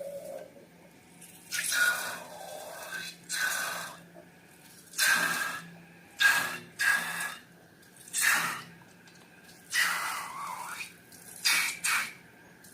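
Slime being handled and mixed: a series of about ten short, wet sounds, each under a second, with brief pauses between them.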